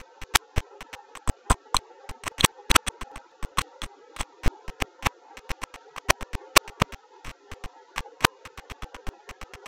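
Rapid, irregular sharp clicks, several a second, over a faint steady hum.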